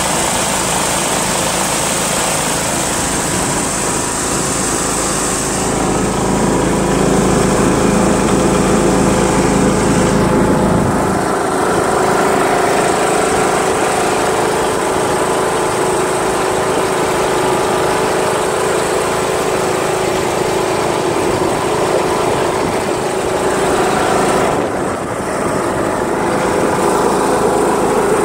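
John Deere L100 riding lawn tractor's Briggs & Stratton Intek 17 hp engine running steadily as the tractor is driven on pavement. The low rumble drops away about ten seconds in, and the level dips briefly near the end.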